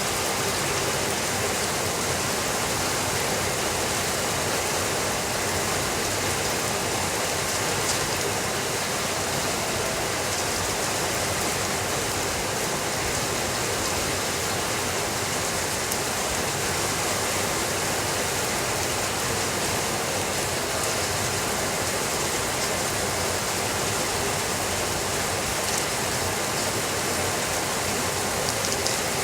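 Steady rainfall: an even, unbroken hiss of rain with a few faint ticks.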